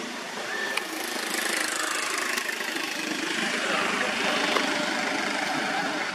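Engine noise of a passing motor vehicle, swelling about a second in and dropping in pitch around the middle.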